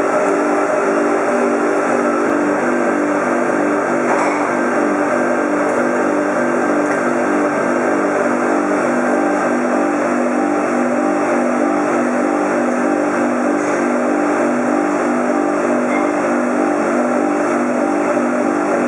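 Sausage vacuum filler running, a steady motor hum that pulses evenly as it pushes meat into the casings.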